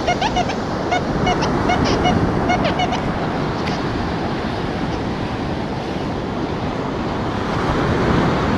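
Steady surf washing on the beach, with a metal detector giving a quick run of short beeps over the first three seconds as its coil passes over a freshly dug hole, signalling metal in the sand.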